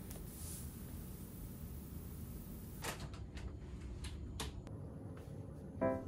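Low steady room rumble with a few faint clicks and knocks about halfway through; piano music starts near the end.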